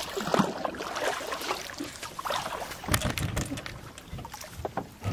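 Wooden canoe paddle pushing and splashing in shallow water, with scattered irregular knocks on the canoe as it is worked in against a sandy bank.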